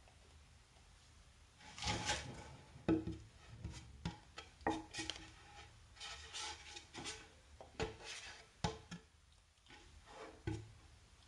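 Irregular light knocks, taps and rubbing sounds, a dozen or so spread unevenly, the loudest about two and three seconds in.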